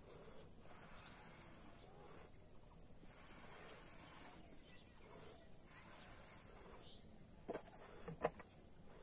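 Soft puffs of breath blown into rubber balloons as they are inflated by mouth, about one puff a second, over a faint steady high insect buzz. A few sharp clicks near the end.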